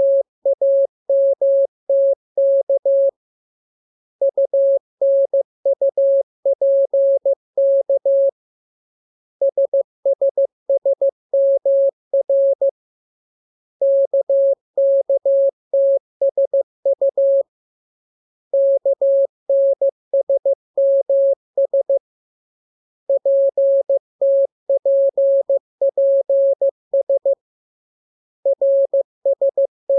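Morse code as a single steady-pitched beeping tone, keyed in dots and dashes. The letters come in blocks of about three to four seconds, with a pause of about a second between blocks: practice groups drawn from the letters K, M, U, R, E, S, N, A, P, T.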